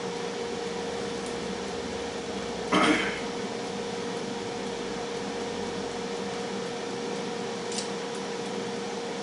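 Steady hum of a Tristar FR-6989 air fryer's fan running, with one constant tone. A short, loud, noisy burst comes about three seconds in, and a faint click near the end.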